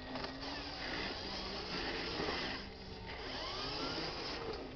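Small electric motor and gearbox of a radio-controlled dump truck whining as it drives over dirt, the pitch gliding up and down with the throttle.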